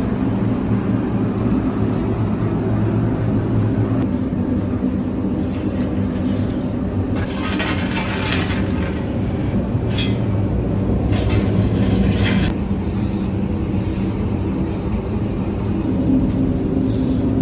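An engine or motor running steadily with a low hum, with stretches of rushing, rattling noise over it about halfway through.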